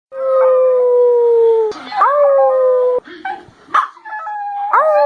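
Puppy crying loudly: long, high whining howls that each slide slowly down in pitch. The first lasts over a second and a half, a second follows about two seconds in, and a third starts near the end, with a short yelp between them.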